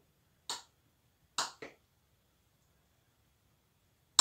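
Kitchen knife tapping against a cutting board while finely slicing boiled potato: three short sharp knocks, the last two close together.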